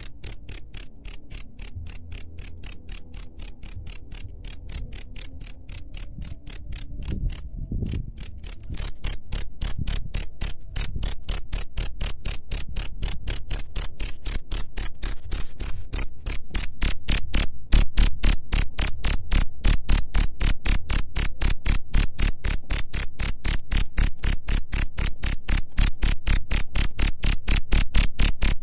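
Cricket chirping loudly in a steady, even rhythm of high-pitched pulses, about four to five a second, with a brief break about seven and a half seconds in.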